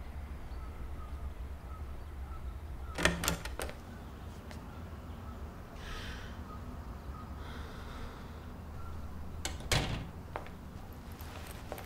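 Door sounds: two short clusters of clicks and knocks, one about three seconds in and another near ten seconds in, over a low steady hum.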